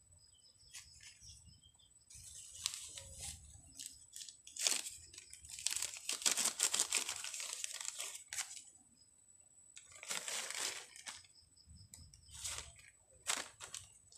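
Thin black plastic nursery polybag crinkling as it is opened and handled, in several bursts: a long one from about two seconds in to past eight seconds, then shorter ones after ten seconds.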